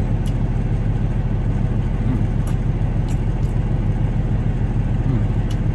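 Semi-truck's diesel engine idling, a steady low rumble heard inside the cab, with a few faint clicks over it.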